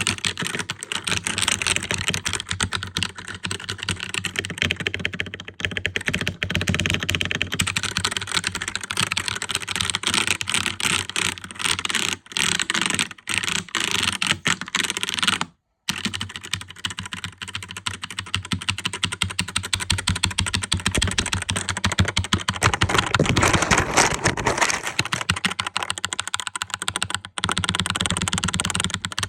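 Computer keyboard typed on rapidly and without pause, a dense stream of clacking keystrokes. The clacking cuts out for a split second about halfway through, then carries on.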